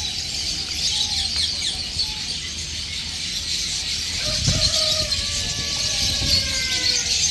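Many small caged birds chirping in a constant chatter. About four seconds in, a rooster crows: one long call, about three seconds, that slowly falls in pitch. A couple of low thumps come near the start of the crow.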